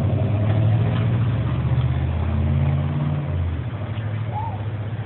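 Low, steady mechanical motor hum, fuller and louder for the first three and a half seconds, then easing a little quieter.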